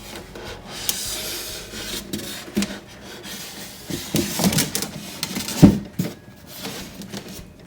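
An egg incubator's lid being fitted and pressed into place by hand: scraping and rubbing with several knocks and clicks, the sharpest near the end.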